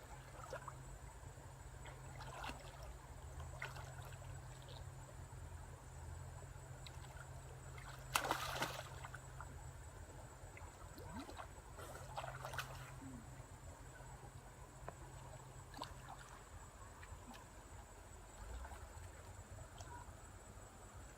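Water splashing and trickling in shallow water, with scattered small splashes and one louder splash about eight seconds in.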